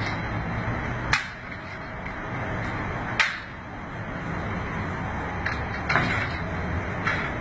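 Glass-panelled folding doors being handled: two sharp knocks about two seconds apart, then a few fainter clicks near the end, over a steady rushing noise.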